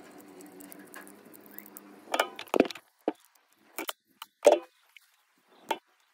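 Handling noise from wiring a small plastic switch with a screwdriver: a faint steady hum, then about half a dozen short sharp clicks and clinks spread over the last four seconds, the loudest a little past the middle.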